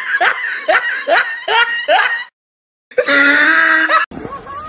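A person's high-pitched voice giving short rising cries, about two a second, then half a second of silence and one loud held cry that cuts off abruptly. After the cut, faint background noise and voices.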